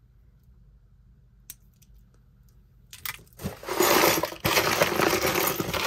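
A faint click, then from about three seconds in a loud, steady clatter of loose costume jewelry and beads rattling and clinking inside a cardboard box as the box is handled.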